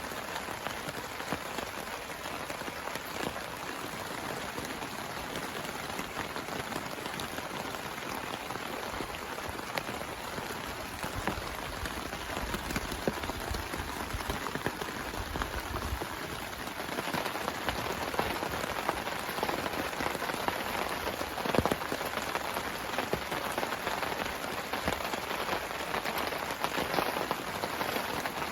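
Heavy rain falling steadily: a dense hiss full of individual drop hits, with one sharper hit about three quarters of the way through.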